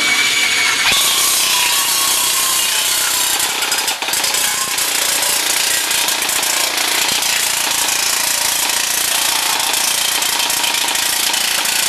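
Custom battery-powered airsoft gun firing full-auto at a very high rate of fire in one continuous burst: a dense, rapid clatter with a motor whine that sinks slightly in pitch.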